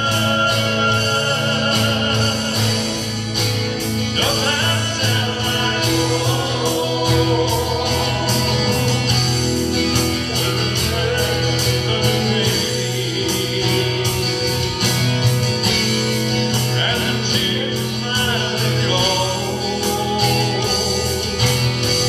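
A man singing a gospel song, accompanying himself on a strummed acoustic guitar.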